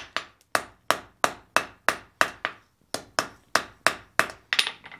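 Hand hammer striking a red-hot bar on an anvil, about three blows a second with a short ring after each, flattening the end of a forged hook. The blows stop just before the end.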